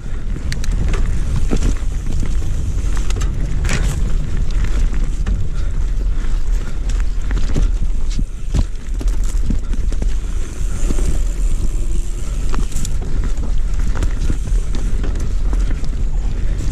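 Hardtail mountain bike riding fast down a rough trail: steady wind buffeting on the microphone and tyre rumble, with frequent sharp knocks and rattles from the bike over the bumps.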